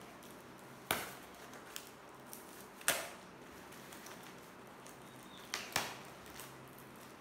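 A knife cutting open a cardboard-and-packing-tape parcel: a few sharp crackling snaps and knocks, one about a second in, one about three seconds in and a quick pair near the end, with small rustles and ticks between.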